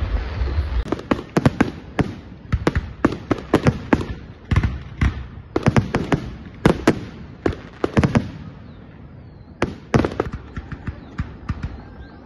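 Fireworks display: aerial shells bursting in a rapid, irregular run of sharp bangs, with a brief lull about two-thirds of the way through before a few more bangs.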